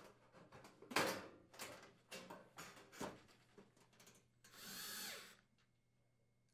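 Sheet-metal access panel clattering and knocking against the oven's metal cabinet as it is fitted back on, with the loudest knock about a second in. Near the end comes a short whir of a cordless drill, under a second long, that stops abruptly.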